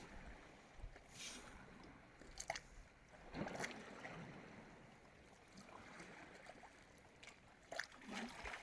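Faint water lapping and gurgling at the shoreline, with a few soft rustles and scrapes scattered through it.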